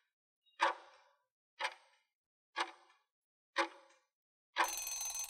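Countdown-timer clock-tick sound effect: four sharp ticks, one a second, followed about a second later by a brief bright time's-up sound effect lasting about half a second.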